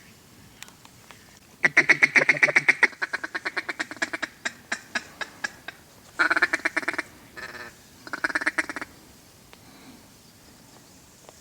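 Mallard quacking: a loud run of quick quacks about two seconds in that slows and fades over some four seconds, then three short bursts of fast chatter.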